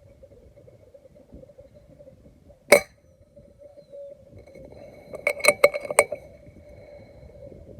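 A single air rifle shot, a sharp crack about three seconds in. A couple of seconds later comes a quick run of about five sharp metallic clicks with a brief ring.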